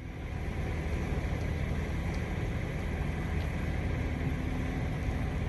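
A steady low rumble with a hiss over it, and a faint steady hum coming in about four seconds in.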